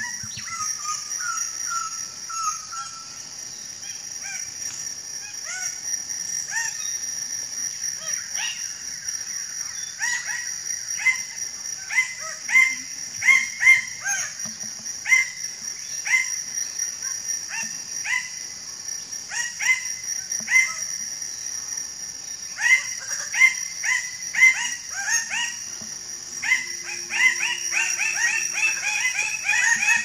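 Forest birds calling: many short, sharp calls repeated in quick series, over a steady high-pitched insect drone. A low steady hum joins near the end.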